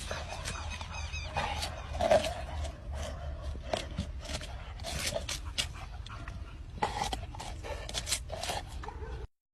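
A dog making short vocal sounds amid many sharp clicks and knocks, over a low rumble; the sound cuts off suddenly near the end.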